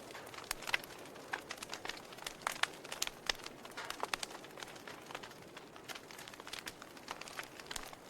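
Wood fire in a fireplace crackling, with many irregular sharp pops over a soft hiss.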